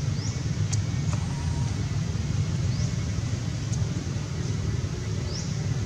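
Steady low outdoor rumble, with a few short, high rising chirps and a couple of faint clicks over it.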